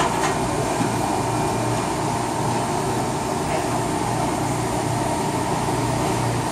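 Steady fan hum of commercial kitchen ventilation and refrigeration equipment, with a couple of faint clicks.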